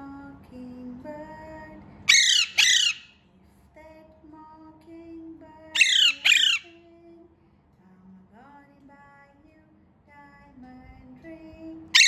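Alexandrine parakeet giving loud, harsh squawks in pairs, three times: about two seconds in, about six seconds in, and at the very end. Between the squawks, soft background music with a sung melody plays.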